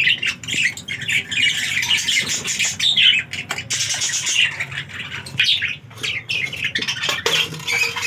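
Budgerigars chirping and squawking, a busy, continuous flock chatter of many short calls, with a few light clicks mixed in.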